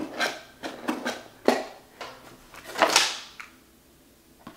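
A cardboard kit box being opened and unpacked: a string of knocks and rustles as the box is handled and small plastic bags and a stack of wooden parts sheets are set on a table, with a longer sliding rustle about three seconds in.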